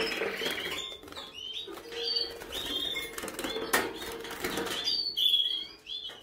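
Young red canaries fluttering in a small wire cage, their wings flapping, with short high chirps and a single sharp click a little under four seconds in.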